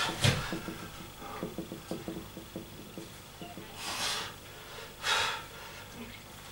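A man breathing hard from exertion between weight-training sets: a heavy breath near the start, then two more loud breaths about four and five seconds in.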